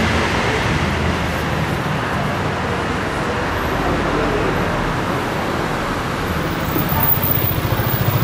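City street traffic noise: a steady rumble of vehicle engines, with an engine close by growing louder and pulsing near the end.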